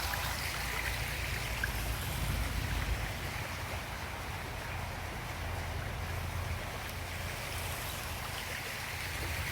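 A flooded creek running fast, a steady rushing of water.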